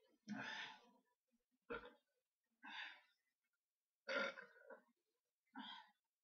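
A man burping five times in short bursts about a second apart, belching up gas from gulping shots of carbonated beer.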